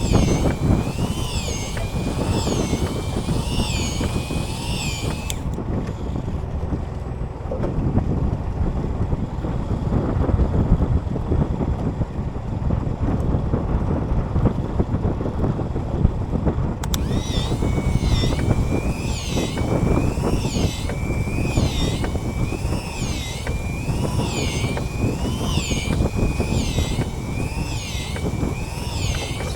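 Wind buffeting the microphone on a small fishing boat at sea, a steady rumbling noise. Over it a high warbling tone rises and falls about once a second; it drops out for about ten seconds in the middle and then comes back.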